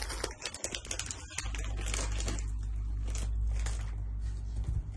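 Close handling noise as a bag of candy is dealt with: a quick run of clicks and rustles, then a steady low rumble for about three seconds.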